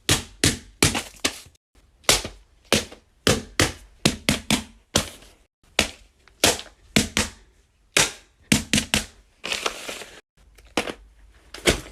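Fidget toys being handled close up: a run of sharp clicks and snaps, two or three a second at an uneven pace, with a short rustling hiss about two-thirds of the way through.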